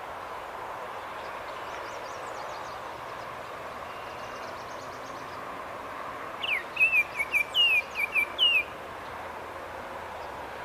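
A songbird sings one loud, quick song of about eight short notes, a little past halfway through, with a fainter high trill from another bird earlier on. Under it runs a steady background noise.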